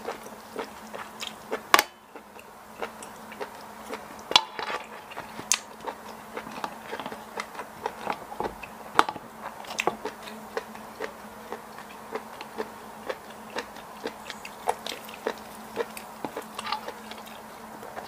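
Close-miked chewing of a mouthful of seafood stir-fry with rice: many small, irregular wet mouth clicks, with a few sharper clicks standing out. A faint steady hum sits underneath.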